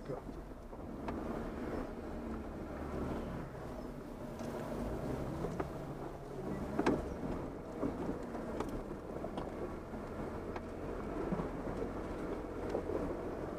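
Off-road 4x4 crawling slowly over a rough dirt trail in four-wheel-drive low: a steady low rumble from the engine and drivetrain, with scattered sharp knocks and clicks over the bumps, the loudest about seven seconds in.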